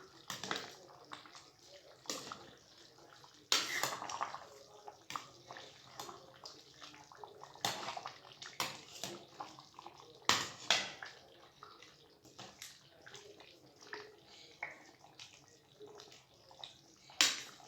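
Water splashing and running in irregular bursts, the loudest splashes about four seconds in, near the middle and near the end.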